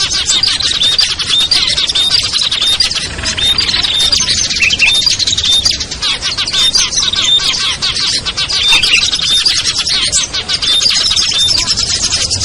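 Dense, continuous chorus of small songbirds: many rapid ticking and chirping calls overlapping without a break. It is a mixed-species lure recording made to draw wild small birds down.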